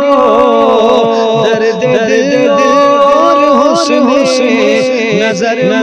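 An Urdu devotional song (a naat) in which a solo voice sings long, ornamented runs that glide up and down over a steady, held drone accompaniment.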